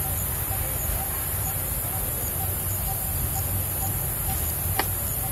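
Outdoor ambience: a steady high hiss over a low rumble, with a faint short sound repeating about twice a second and one sharp click near the end.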